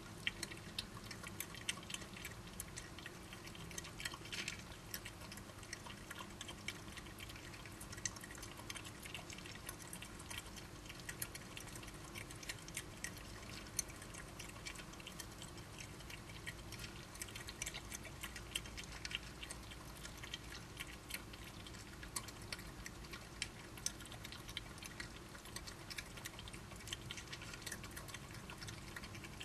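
Badgers eating: a dense, irregular run of small clicks and crunches of chewing, over a steady low hum.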